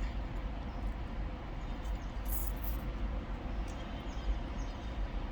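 Steady low rumble inside a car's cabin, with a brief faint rustle about two seconds in.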